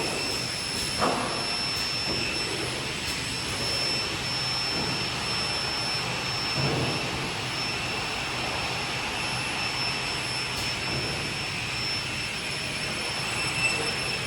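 Steady machine noise from welding and cleaning machinery running: an even hiss with constant high whining tones over it and a few faint knocks.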